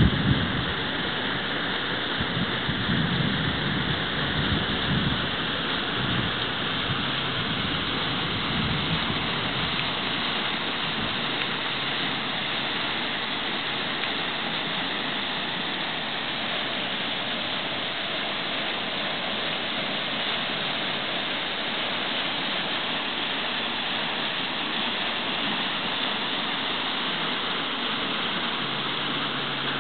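River water rushing over and past a cracked old stone dam, a steady hiss. Some low thuds come in the first several seconds.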